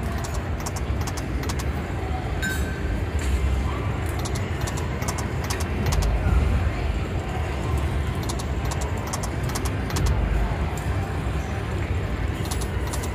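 Steady casino-floor din with a low rumble, broken every couple of seconds by clusters of short, high jingling clicks as a video slot machine's reels spin and stop.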